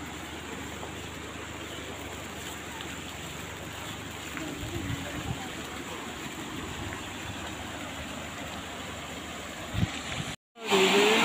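Steady rush of water flowing through fountain channels and a stepped cascade, with faint voices of people around. Near the end the sound cuts out for a moment and comes back as a louder rush with voices.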